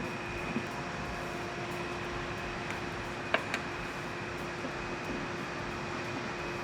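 Steady background hum with a low and a high steady tone in it, and two light clicks a little over three seconds in as intake parts and rubber grommets are handled.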